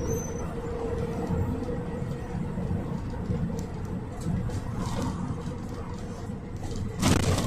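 Cabin noise inside a moving GAZelle Next minibus with a Cummins 2.8 engine: a steady low engine and road rumble. Near the end comes a short, louder jolt.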